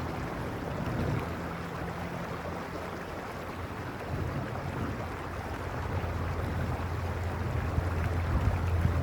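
Mountain creek rushing over stones in a steady, even wash, with a low rumble that swells and grows louder in the second half.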